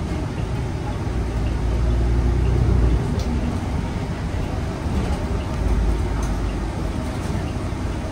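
Inside a 2020 New Flyer XN35 CNG transit bus under way: the Cummins Westport L9N engine's steady low rumble mixed with road noise, heard from the passenger cabin near the front.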